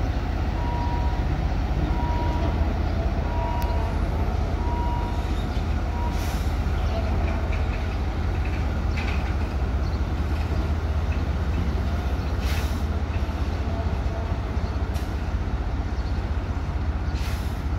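Diesel shunting locomotive HAS 77 running and moving slowly along the track with a railcar in tow, its engine a steady low rumble. A short beep repeats over the first few seconds, and several brief hisses come later.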